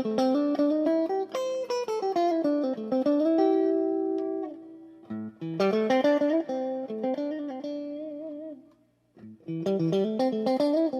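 Fernandes Strat-style electric guitar played through an amp: quick single-note melodic runs, each phrase settling on a held note with vibrato. There are three phrases, with short breaks about five and nine seconds in.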